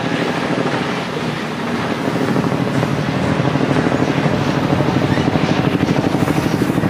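Freight train of empty flatcars rolling past at speed: a steady rumble of steel wheels on rail with a fast, even pulsing beat that grows stronger in the second half.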